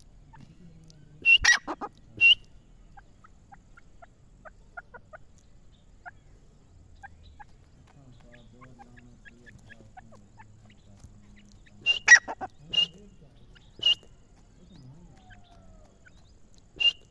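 Grey francolin (teetar) giving short, sharp calls: a quick run of notes about a second in, another run about twelve seconds in, then two single calls near the end.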